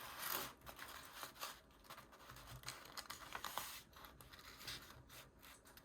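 A sheet of printer paper being handled and folded in half, with faint rustling and crinkling as the edges are lined up, loudest about a quarter-second in.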